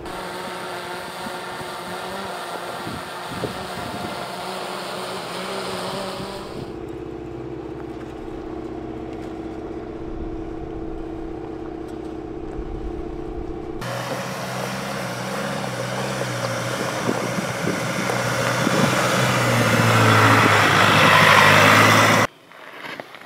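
Volkswagen Amarok pickup's engine running as the truck drives an off-road dirt trail, heard in three cut-together stretches. It grows louder near the end and cuts off suddenly just before the end.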